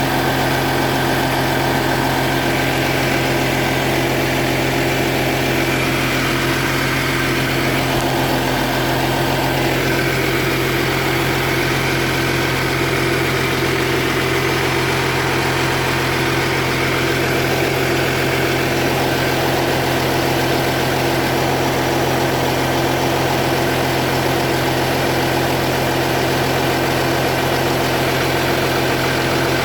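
2010 Audi Q7 TDI's 3.0-litre V6 diesel engine idling steadily, with an exhaust leak on the vehicle.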